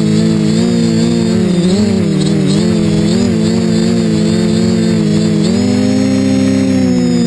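Quadcopter's electric motors and propellers buzzing in flight, the pitch wavering with throttle changes and stepping up about five and a half seconds in.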